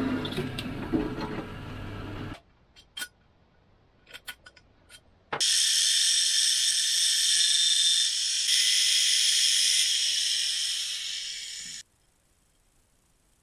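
A drill press runs as its bit bores into a steel plate, cutting off about two seconds in, followed by a few light clicks of metal being handled. About five seconds in, an angle grinder's disc bites into steel with a loud, high, even grinding noise that stops abruptly near the end.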